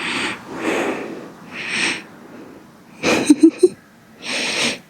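A dog breathing noisily close to the microphone: five short puffs of breath, with a few brief squeaky sounds about three seconds in.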